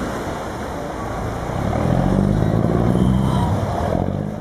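Chao Phraya Express passenger boat's engine running louder from about one and a half seconds in as the boat comes in to the pier, over the rush of churned river water.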